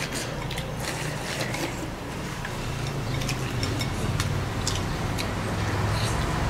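Chopsticks and a metal spoon clicking against porcelain bowls during a meal: scattered light clicks over a low steady hum.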